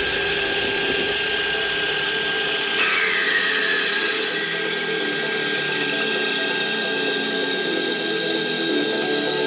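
Horizontal metal-cutting band saw running and cutting through square steel tubing: a steady grinding hiss with a steady high tone. A brief falling squeal comes about three seconds in.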